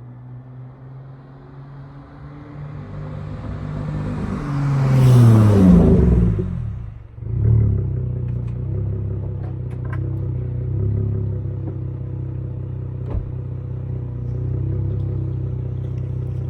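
Dodge Charger SXT's V6 through a Flowmaster Outlaw exhaust revs up over a few seconds and drops back, then settles into a steady, deep idle. A few faint crackles and a single sharp pop come from the exhaust during the idle.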